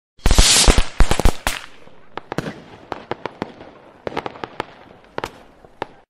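Intro sound effect of sharp crackling pops: a dense cluster of loud cracks in the first second and a half, then scattered single pops that thin out.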